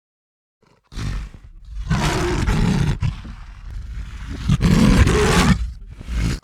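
A large animal's loud, rough calls, starting about a second in, loudest twice, then cut off abruptly at the end.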